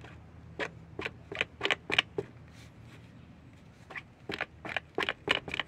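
Bottle of polishing compound being handled to dispense polish onto a pad: a run of short, sharp clicks and squirts in two bursts, each of five or six quick sounds.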